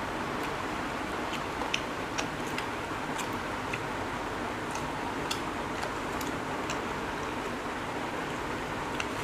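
Eating by hand at a table: chewing, and fingers picking apart jackfruit pods, bread and fried egg on plates. It comes through as scattered light clicks and smacks, about one or two a second, over a steady hiss.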